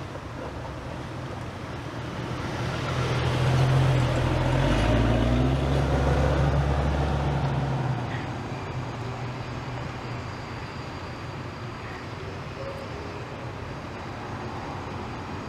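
A motor vehicle driving past: a low engine and road noise that grows louder over a couple of seconds, is loudest from about four to eight seconds in, then fades away.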